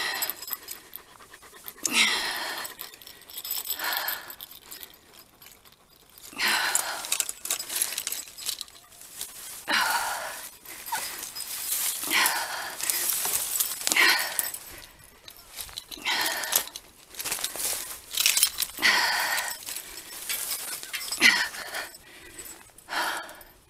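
Heavy, effortful breathing, a long breath every two to three seconds, some with a strained voiced edge, while a toppled dog sulky is hauled back up onto a boardwalk.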